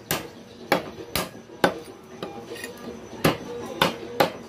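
Heavy butcher's cleaver chopping rooster meat and bone on a wooden log chopping block: about seven sharp chops at uneven spacing, with a pause of about a second and a half in the middle.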